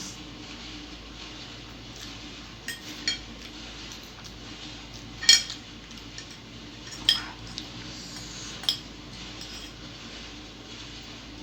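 Metal cutlery clinking against a dish as noodles are scooped up, about six separate clinks with a short ring, the loudest about five seconds in.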